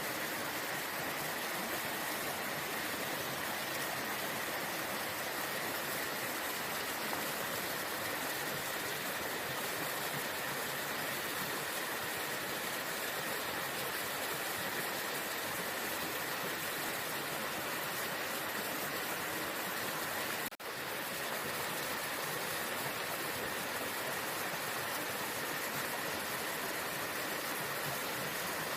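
Waterfall: falling water rushing steadily, with a sudden split-second dropout about twenty seconds in.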